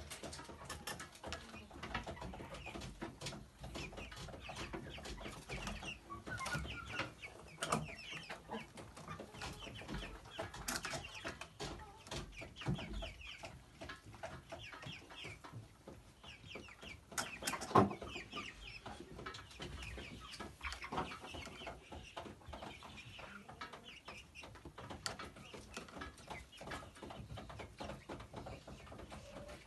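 Domestic hens clucking over many short, sharp taps and clicks, with one louder knock about eighteen seconds in.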